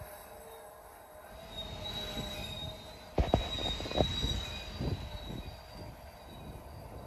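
Covered hopper cars of a slow BNSF freight train rolling by, their wheels squealing on the rail in a thin, high, steady tone. About three seconds in, a run of loud thumps and clanks comes from the passing cars.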